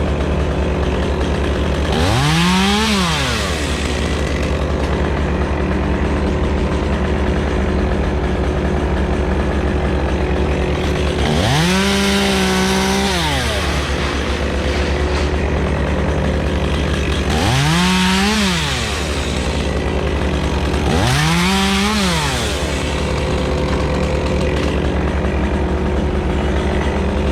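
Stihl chainsaw revved up four times, each time climbing in pitch, holding for a second or two and dropping back to idle, over a steady engine running underneath.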